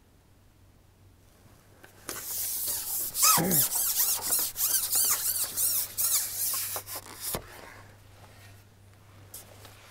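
Carbon fishing pole being handled and slid, its sections rubbing with a scraping hiss and a short falling squeak. It starts about two seconds in, lasts about five seconds and ends with a knock.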